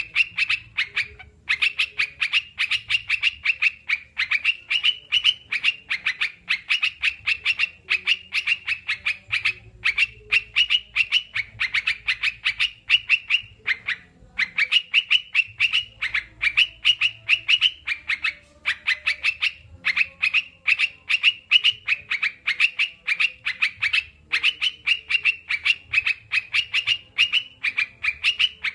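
Crucukan (yellow-vented bulbul) chattering, a fast run of short notes, several a second, breaking off briefly twice. This is bird-therapy birdsong meant to set other kept birds singing.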